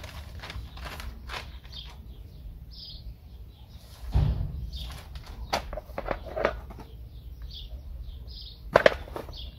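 Plastic packaging rustling and crinkling as it is handled and opened, with a dull bump about four seconds in and a sharp crackle near the end. Small birds chirp faintly in the background.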